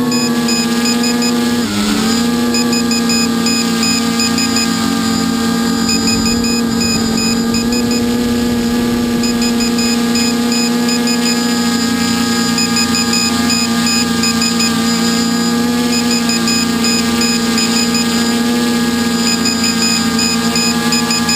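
Multicopter's electric motors and propellers whining steadily, heard from the camera mounted on the craft. The pitch dips briefly and recovers about two seconds in.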